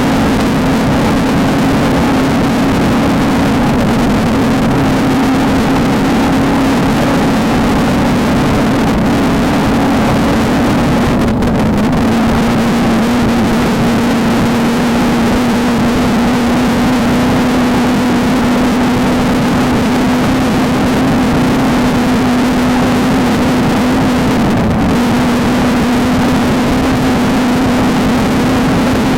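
A VW Beetle desert race car's engine held at steady high revs under race load, over a constant rush of road and wind noise. Its pitch eases down slightly about a third of the way in and lifts a little again near the end.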